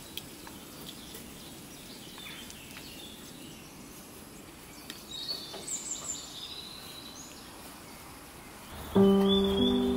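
Quiet outdoor background noise with a few short, high bird chirps around the middle. Music starts again loudly near the end.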